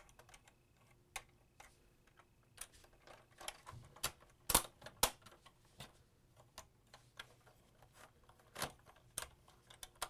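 Irregular small plastic clicks and taps as the stabilizer legs of a Playmobil 5362 ladder truck toy are swung out and set by hand, with two sharper clicks about four and a half and five seconds in.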